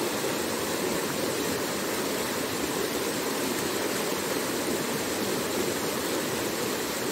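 Rapids of a small rocky stream rushing steadily over boulders, a continuous even rush of white water.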